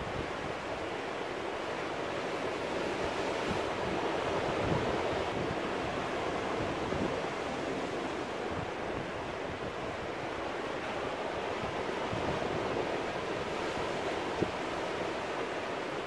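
Sea surf breaking and washing over the rocks of a small rocky cove: a steady rushing wash that swells a little about four seconds in and again near the end.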